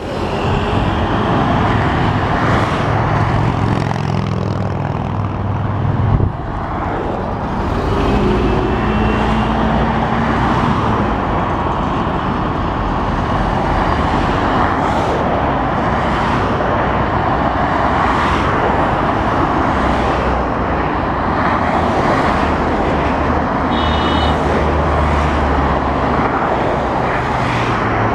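Heavy, continuous traffic on the eleven-lane M30 motorway: a steady stream of vehicles passing, loud enough to read about 80 to 83 dB on a sound level meter beside the road.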